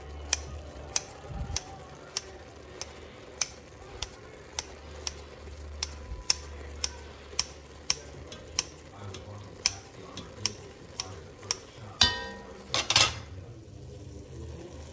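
Kitchen scissors snipping through browned ground meat in an enameled pot, a crisp click about twice a second. Near the end comes a louder metal clank with a brief ring, then a scrape.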